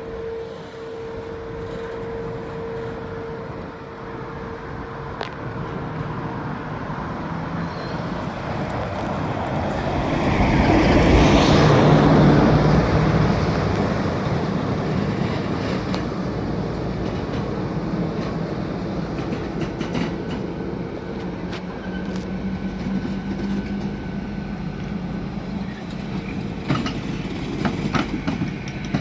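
Freight train hauled by a Class 66 diesel locomotive passing over a level crossing. It is loudest about ten to thirteen seconds in as the locomotive goes by, then settles into a steady rumble of the wagons rolling past.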